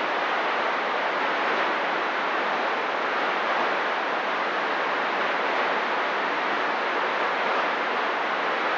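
CB radio receiver hiss: steady, even static from an open channel with nobody transmitting.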